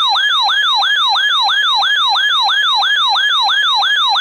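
Weather radio alert siren: a loud electronic tone whooping up and down about four times a second, sounding for an incoming warning alert.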